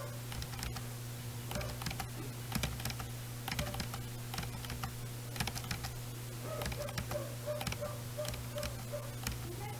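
Typing on a computer keyboard: irregular runs of sharp key clicks over a steady low hum.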